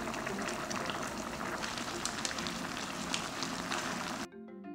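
Braised beef short ribs (galbi-jjim) in their soy-based sauce bubbling and sizzling in the pot as they cook down, a dense crackling hiss. It cuts off suddenly about four seconds in, leaving piano music.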